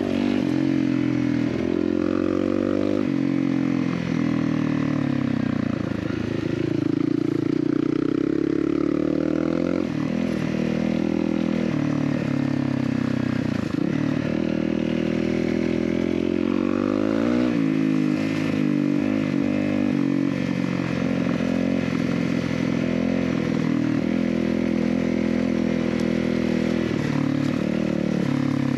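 Honda CRF250L dirt bike's single-cylinder four-stroke engine running under way, its revs climbing and dropping again and again as the throttle is opened and closed.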